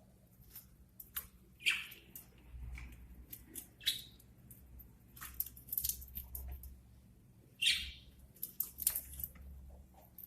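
Pet budgerigars giving a few short chirps, with many sharp clicks in between.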